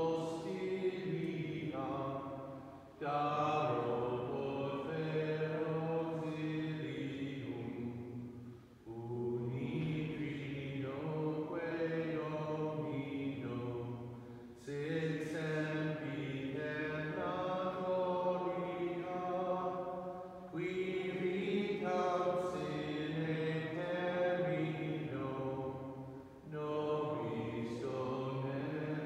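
Slow sacred chant sung in long, held phrases of about six seconds each, with short pauses for breath between them.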